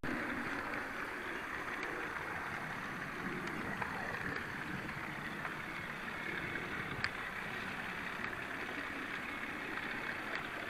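Steady rolling noise of a garden-scale model train running on its track, with a few faint clicks.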